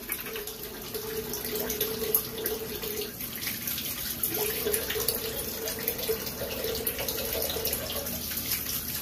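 Cold water running from a bathroom tap into the sink, with splashing as it is scooped onto a freshly shaved face and head for the post-shave rinse.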